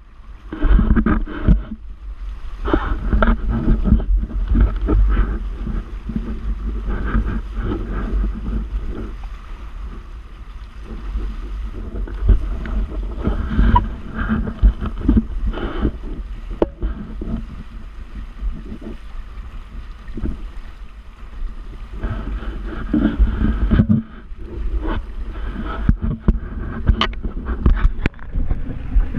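Wind buffeting the microphone over water rushing and splashing along the hulls of a Hobie Tandem Island sailing kayak under sail, rising and falling in gusts, louder in the first few seconds and again near the end.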